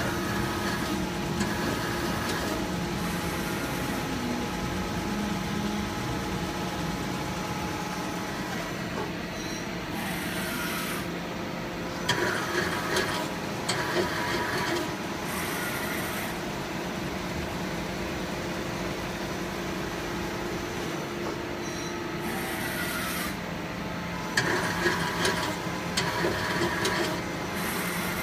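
Tsugami FL-32 CNC lathe running a test cycle: a steady machine hum with held tones, broken twice, about halfway through and again near the end, by a few seconds of louder scraping and clattering.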